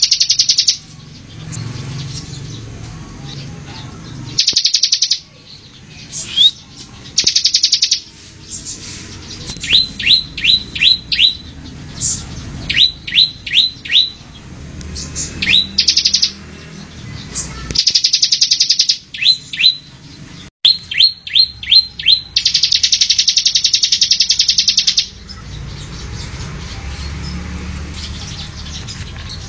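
Bar-winged prinia (ciblek) singing: loud buzzy rattling trills about a second long, alternating with quick runs of three to five sharp, downward-sweeping notes, with one longer trill of about three seconds near the end.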